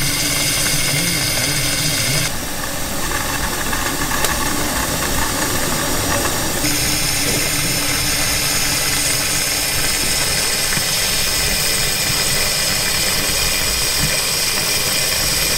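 Steam blower on a one-foot-gauge 0-4-2 tank locomotive hissing steadily, its steam jets up the funnel drawing the fire while steam is raised. The higher part of the hiss drops away about two seconds in and returns a few seconds later.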